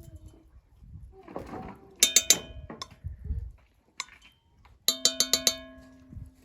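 A metal utensil rapped several times in quick succession against a metal cooking pot, each rap ringing on. There is a short run about two seconds in and a longer run of about six raps near five seconds in.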